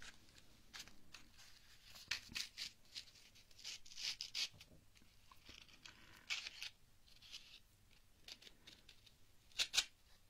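Matches being struck on a matchbox's striking strip close to the microphone: several bursts of short, scratchy strokes, the loudest about half a second before the end.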